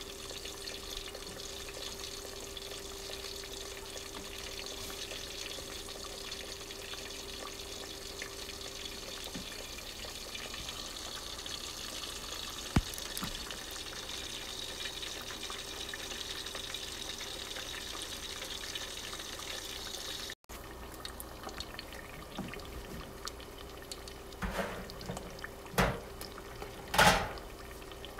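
Food deep-frying in a pot of hot oil, a steady sizzle with a faint steady hum beneath it. A few knocks near the end.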